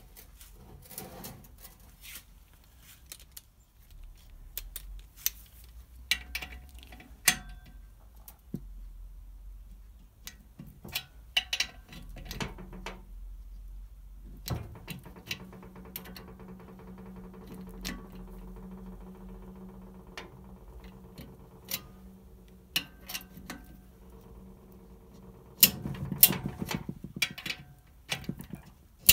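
Metal clicks and knocks of a torque wrench and socket being fitted to and tightened on the cylinder head nuts of a Citroën 2CV flat-twin engine, with a quick run of ratcheting clicks near the end. A steady low hum runs from about halfway through until shortly before the ratcheting.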